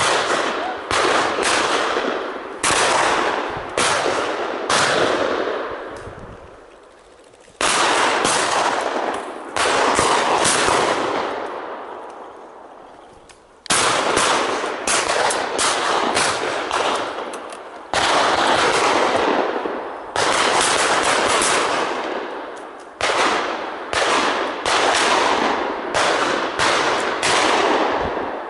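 Shotguns firing from several guns, some two dozen shots in four clusters with gaps of a second or so between them. Each shot trails off in a long echo that fades over a few seconds.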